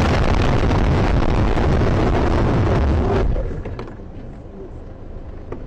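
Loud rushing and rumbling of a car in a crash, heard from inside the cabin. It drops off sharply about three seconds in, leaving a few faint knocks and rattles.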